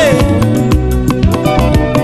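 Congolese gospel song with a band playing a steady, even beat of drums over bass. A sung line trails off just after the start and a short vocal phrase comes in about one and a half seconds in.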